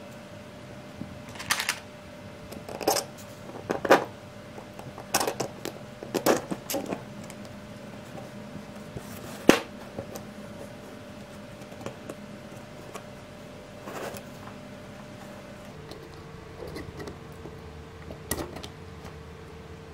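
3D-printed plastic parts, a steel bolt and a ball bearing being handled and fitted together by hand: scattered clicks and knocks of plastic and metal tapping together, the sharpest about halfway. A faint steady hum runs underneath.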